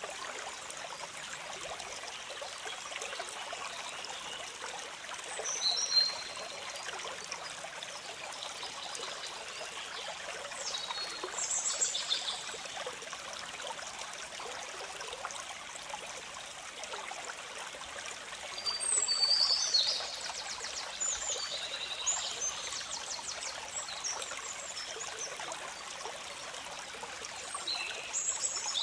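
Water of a small stream trickling and splashing over rocks, running steadily. Birds call above it now and then with short high chirps; the loudest come about six seconds in and around twenty seconds in.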